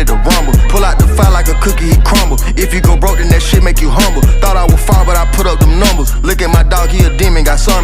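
Hip-hop track with a heavy bass line and hard-hitting drums, its vocals running on with no clear words.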